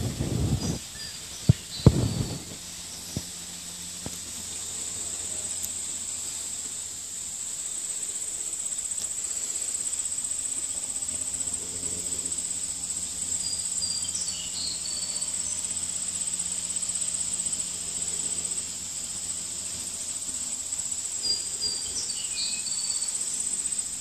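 A steady, high-pitched insect chorus, with a few sharp knocks in the first seconds and short high chirps three times.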